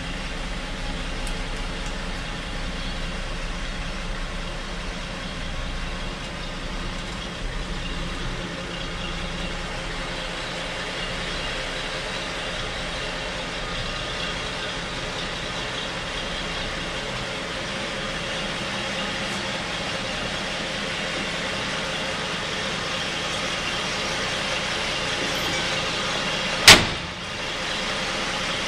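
A steady low hum throughout, then near the end a single loud slam as the cab door of a 1959 GMC pickup is shut.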